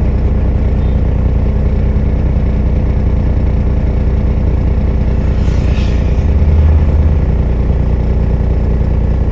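CAT excavator's diesel engine running steadily under work, briefly pulling harder and louder about six to seven seconds in.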